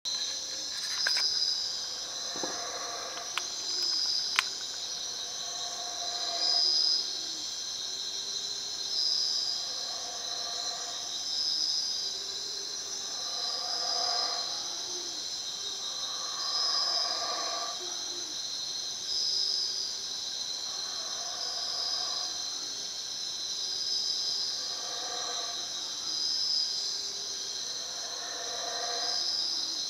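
Night-time tropical insect chorus: a steady high-pitched buzz that swells and fades about every two seconds. A lower call about a second long from another animal repeats every three to four seconds beneath it.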